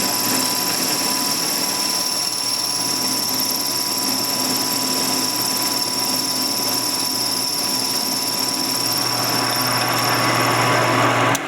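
Machine tool running steadily with a homemade ball cutter cutting a spherical cavity in a metal mold block, with a steady high whine. The cutting grows slightly harsher toward the end, then the sound stops abruptly.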